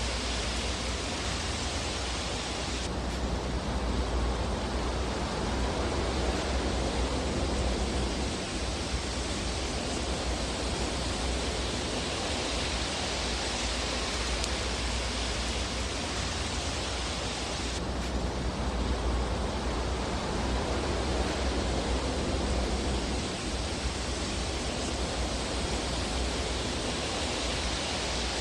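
Fire burning in a fireplace, heard as a steady rushing noise over a low rumble, with no distinct crackles. The hiss changes tone twice, a few seconds in and again just past halfway.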